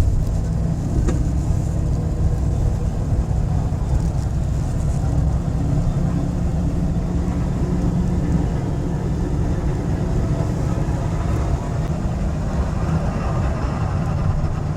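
Old Chevrolet Silverado pickup's V8 engine running steadily under way, with road noise. It runs smoothly with no misfire, after new spark plugs, ignition coils and plug wires cured a random-cylinder misfire (P0300).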